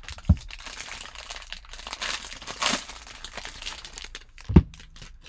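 Foil card-pack wrapper being torn open and crinkled by hand as the cards are pulled out. Two short dull knocks come through it, one just after the start and a louder one near the end.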